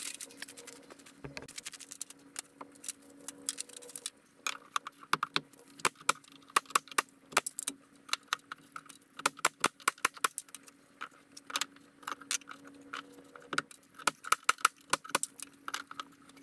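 Irregular sharp clicks and taps, some in quick clusters, as wooden soffit boards are pushed into place overhead. A faint steady low hum runs underneath.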